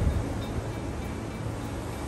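Wind buffeting the microphone over the wash of ocean surf breaking on the shore, a low rumbling noise.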